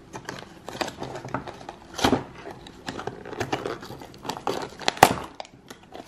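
Cardboard toy box being torn open by hand: a run of short rips and crinkles, with a louder one about two seconds in and the loudest about five seconds in.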